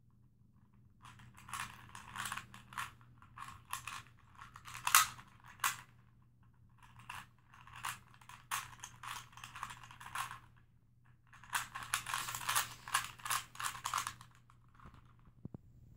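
Plastic 3x3 Rubik's cube clicking and rattling as its layers are twisted quickly by hand. The turning comes in three spells of rapid clicks with short pauses between them.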